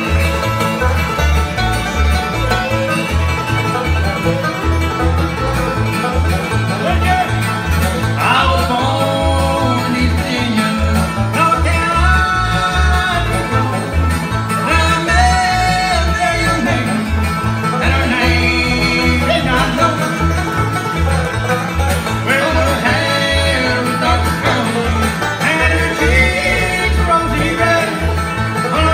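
Bluegrass band playing live through a PA: banjo and acoustic guitar over a steady two-beat bass line, with a fiddle and melody lines above. About a third of the way in, a sung or fiddled melody line comes in over the accompaniment.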